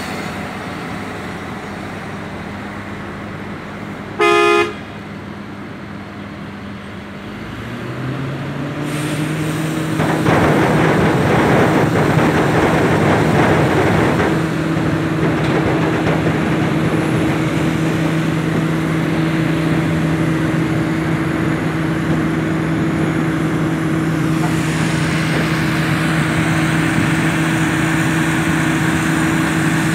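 Heavy diesel engines of a tractor towing a loaded sugar-beet truck running steadily. A short horn blast sounds about four seconds in, then an engine revs up and runs hard and steady under the load of pulling the truck through the mud.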